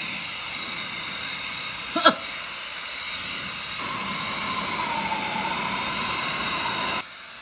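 Drspee digital hair dryer running: a steady rush of blown air with a high motor whine. About four seconds in a wavering whine joins it, and near the end the sound drops sharply in level.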